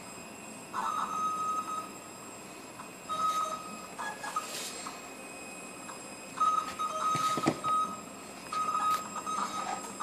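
CNC machine's axis drive motors whining at one steady high pitch in four short moves, each half a second to a second and a half long, with pauses between, over a steady background hiss.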